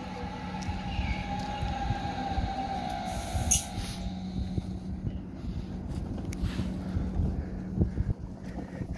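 Hamburg U-Bahn DT4 train braking into a station. Its motor whine falls in pitch as it slows to a stop over a low rumble and a steady hum. A short hiss comes about three and a half seconds in.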